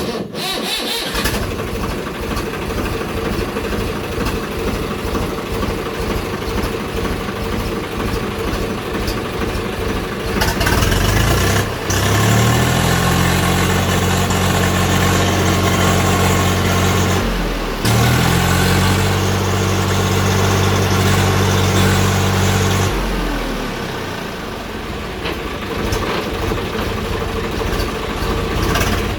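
Tractor diesel engine running loud and steady while pulling a rotavator. About eleven seconds in the engine note rises and holds higher, dips briefly once, and drops back again near the end.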